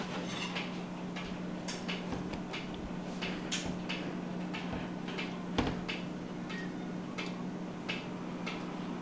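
Light, irregular clicks and scratches of a long plastic tool poking into a small glass vial and working sphagnum moss out of it, with one louder knock a little past halfway, over a steady low hum.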